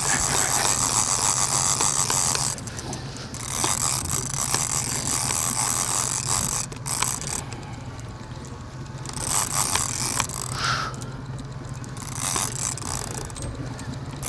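Conventional saltwater fishing reel ratcheting and clicking as a hooked large amberjack is played on a heavily bent stand-up rod. A steady low hum runs underneath.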